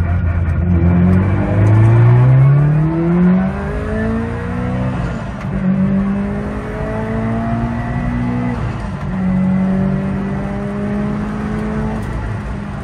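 Subaru WRX STI's turbocharged EJ20 flat-four at full-throttle acceleration through a Kondo Engineering full-titanium competition exhaust, heard from inside the cabin. The revs climb fast for the first few seconds, then drop at gear changes about five and nine seconds in, each followed by a slower climb.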